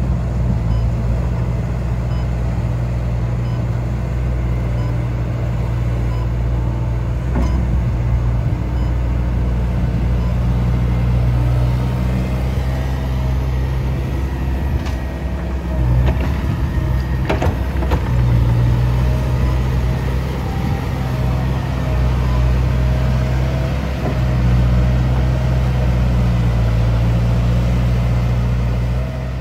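Liebherr R916 crawler excavator's diesel engine running steadily under load as it digs and swings, with small changes in level as the work goes. A few sharp knocks come through, the loudest about seventeen seconds in.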